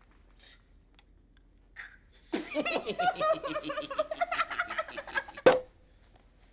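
High-pitched giggling for about three seconds, broken into quick pulses, cut off by one sharp click.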